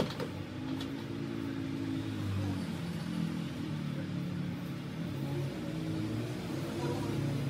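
Motor vehicle engines running in the background, their hum slowly rising and falling in pitch.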